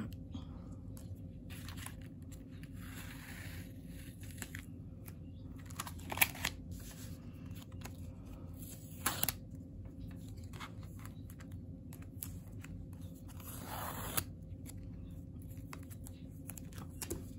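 Washi tape peeled off a paper card in a few separate pulls, with a few sharp clicks over a steady low hum.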